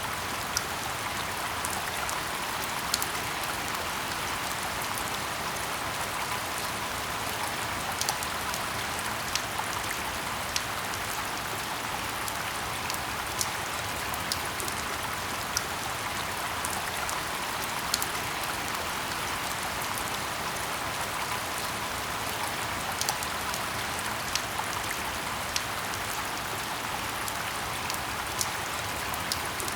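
Steady rain falling in a forest: an even hiss of rain, with scattered nearby drops making sharp ticks.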